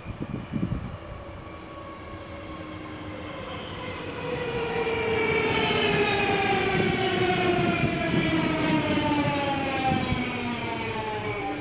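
A DSB Litra SE S-train, an electric multiple unit, running into the station. Several whining motor tones fall slowly in pitch as the train slows, over rail and wheel noise that builds and is loudest from about five seconds in.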